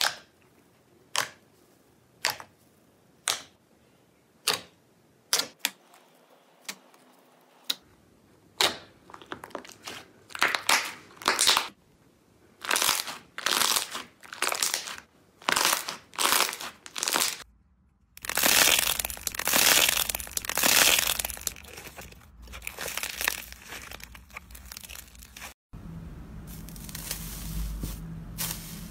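Fingertips poking into a bowl of soft blue slime, each poke a sharp pop about once a second, then quicker squelching pops and a stretch of continuous crackly squishing. Near the end, metallic foil laid over a slime crinkles as hands press it.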